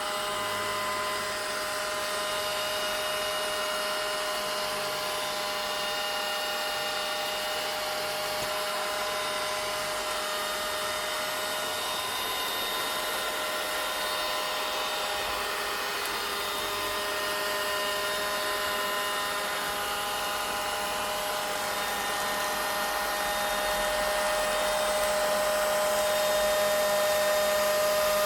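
Vacuum cleaner running steadily: a constant motor whine over a rushing hiss of air, growing a little louder near the end.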